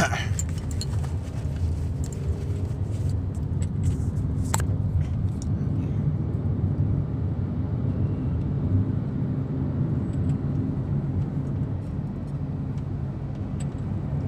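Steady low rumble of a car's engine and road noise, heard from inside the cabin, with a faint click about four seconds in.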